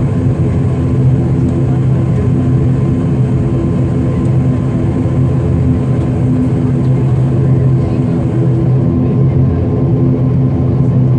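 ATR 72-500 turboprop engines and propellers heard from inside the cabin during the runway roll: a loud, steady drone with a strong low hum and a faint thin whine above it.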